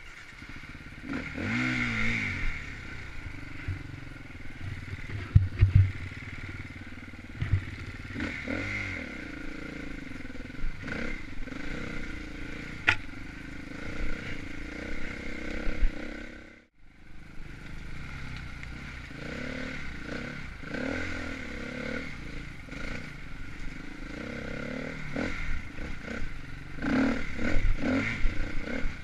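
Enduro dirt bike engine running and revving as it rides rough trail, with knocks and clatter from the bike hitting the terrain. The sound cuts out for a moment a little past halfway.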